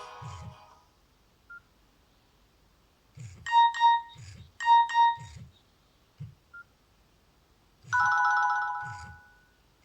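Nokia N70 mobile phone playing its built-in tones one after another. The tail of a melody ends in the first second, followed by a short single beep, two quick bursts of bright electronic beeps, another short beep, and then a sustained chime near the end that fades out.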